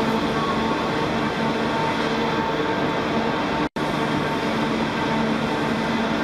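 Steady mechanical drone of the Grand Éléphant, the giant walking machine of Nantes: its engine-driven hydraulic machinery runs with a steady hum. The sound cuts out for an instant a little past halfway.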